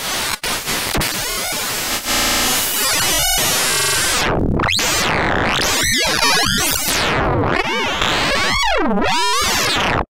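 Omnisphere software synth holding one note while its pitch, waveshaper and other parameters are swept live from the keyboard, making noisy glitch sound effects: dense buzzing and rapid stuttering, then the pitch sweeping up and down several times. It stops abruptly at the end.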